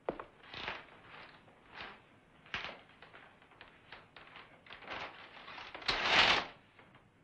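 Scattered light knocks and taps, with short swishing noises and a louder half-second rush of noise about six seconds in.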